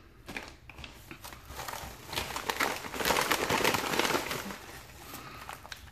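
Plastic mailing bag crinkling and rustling under the hands as they search it, growing louder in the middle and easing off near the end.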